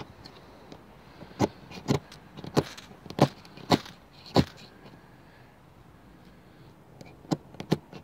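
Ferro rod scraped with the awl of an Ozark Trail 8-in-1 multitool, which stands in for a striker because the blade is too dull: six short, sharp scrapes about half a second apart, a pause of nearly three seconds, then two more near the end.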